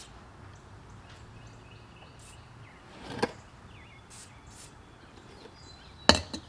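Quiet outdoor background with faint bird chirps, a short clunk about three seconds in, and a sharp metallic clink of hand tools near the end.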